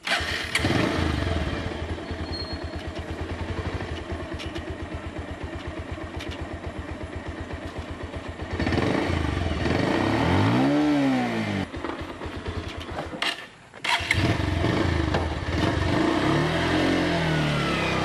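Bajaj motorcycle engine catching right at the start and idling with an even, pulsing beat. It is revved up and back down twice, once in the middle and again more briefly near the end, with a short drop-out between.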